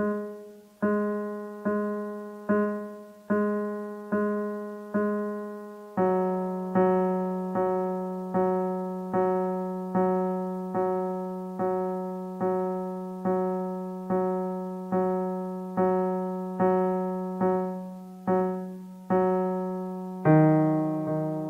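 Casio Privia PX-330 digital piano with one note struck over and over, about once every 0.8 seconds. The note steps down in pitch about six seconds in and again near the end. The notes are played to show a problem with how the instrument's notes are tuned.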